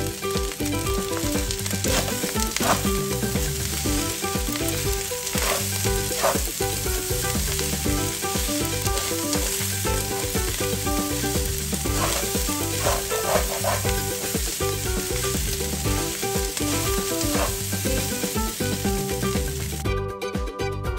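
Fried rice with chickpeas and vegetables sizzling in a hot wok while a spatula stirs and scrapes it around, with occasional sharper scrapes against the pan. The sizzle cuts off about a second before the end.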